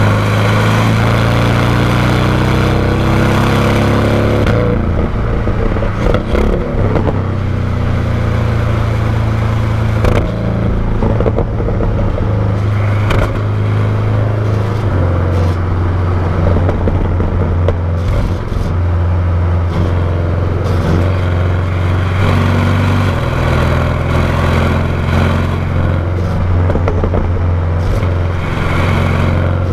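Porsche 718 Cayman GTS's turbocharged 2.5-litre flat-four, its stock exhaust recorded close to the tailpipe while driving. The pitch rises under acceleration for the first four seconds or so, then settles into a steady low drone with small shifts in pitch, over scattered clicks and knocks.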